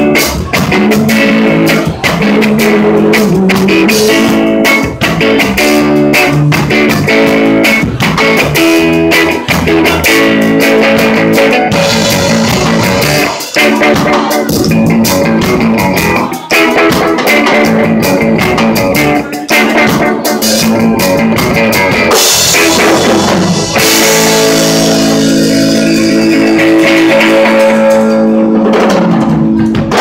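Live band playing: a Les Paul-style electric guitar over a drum kit. At the very end the song stops and a last chord rings out.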